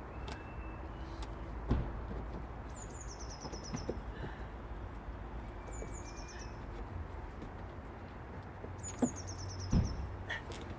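A small bird singing three short phrases of quick, high notes that fall in pitch. A few sharp knocks sound under the song, two of them louder than the rest, over a steady low background rumble.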